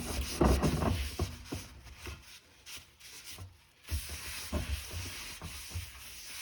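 Paper towel wiping cooking spray over a cast iron Dutch oven lid: a run of quick rubbing strokes that stops briefly about two and a half seconds in, then starts again.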